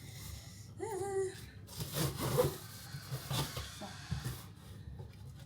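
Cardboard box being handled and opened: irregular rubbing and scraping with a few knocks, and a short pitched squeak or hum about a second in.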